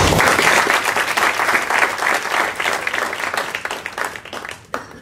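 Applause from a small group of people clapping, starting at once and dying away near the end.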